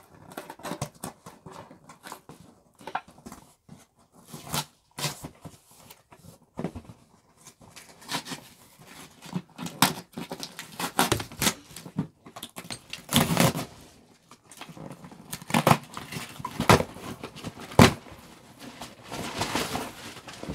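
A cardboard parcel box being torn open by hand: packing tape and cardboard flaps ripping in irregular, sharp tears. Near the end, plastic packing wrap crinkles as it is pulled out of the box.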